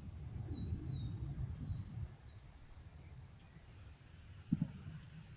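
A small bird calling with three short, falling chirps in the first two seconds, over a low rumble. About four and a half seconds in, a soft double thump as a plate is set down on the picnic cloth.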